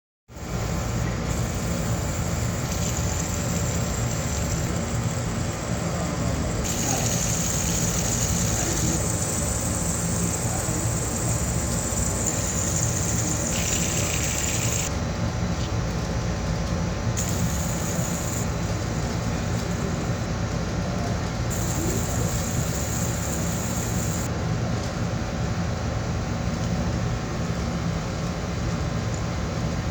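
Fidget spinner spinning: a steady low whirring hum with a thin high hiss that cuts in and out every few seconds.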